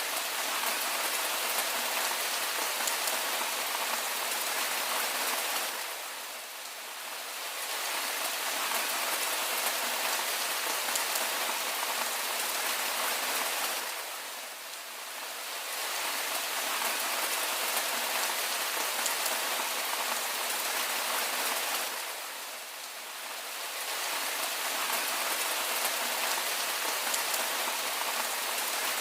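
Steady rain falling, a dense even hiss of drops, briefly dipping in loudness three times, about every eight seconds.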